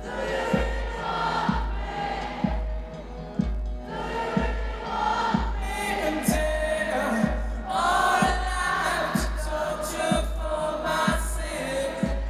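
Live rock band music with a low bass beat about once a second and many voices singing together.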